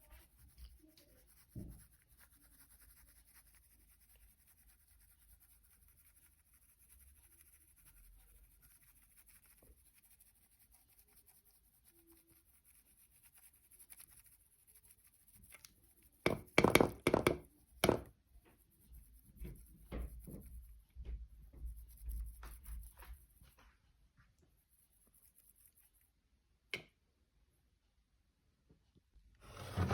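Kitchen utensils and dishes being handled: faint scraping for the first half, then a quick run of loud knocks and clatter a little past halfway, followed by scattered lighter clicks.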